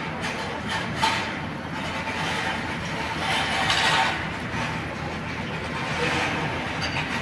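Steady mixed noise of engines and machinery running, with a sharp clink about a second in and a swell in level around four seconds.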